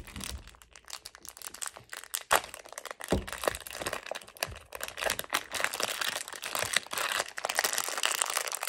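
Clear plastic bag crinkling and crackling as hands pull it off a new 4x4 speed cube, with a few louder sharp cracks in the first few seconds.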